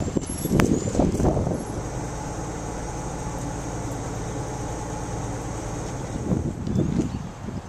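Truck engine running at a steady speed, a low even drone, with a couple of rough rustling bursts near the start and near the end.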